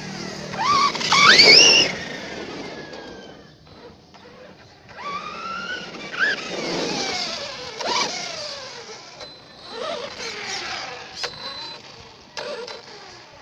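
Redcat Kaiju brushless electric RC monster truck driving: the motor's high whine rises and falls with each burst of throttle, over the rustle of tyres on dirt. The loudest, fastest-rising whines come a second or two in.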